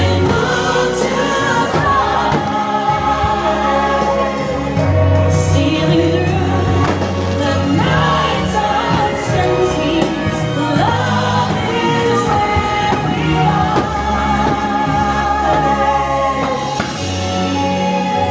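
Choir singing over music with steady, sustained low notes: the musical soundtrack of a fireworks show.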